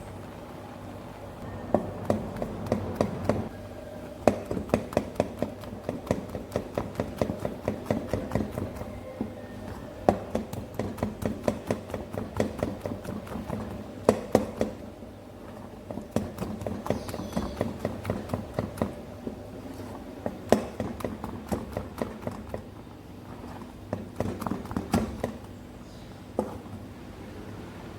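A spoon stirring okra in a cooking pot, knocking against the pot's sides about four or five times a second in several bursts with short pauses between them.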